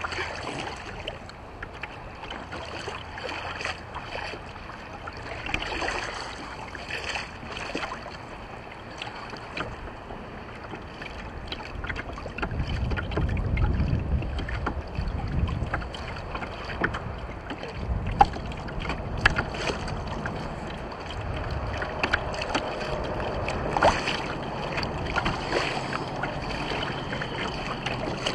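Water lapping and splashing against a kayak's hull with wind buffeting the microphone, heaviest as a low rumble around the middle. Scattered short clicks and knocks on the boat, a few sharp ones in the second half.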